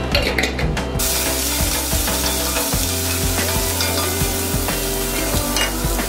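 Sliced leek and bok choy sizzling in hot coconut oil in a cast iron pan, stirred with a wooden spatula. A few knocks come as the greens go in, and the sizzle starts about a second in and stays steady.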